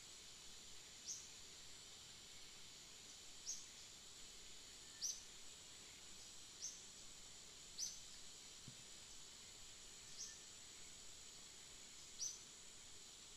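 Faint forest ambience: a steady high insect drone, with a short, high chirp that falls in pitch, repeated seven times at uneven gaps of one to two and a half seconds.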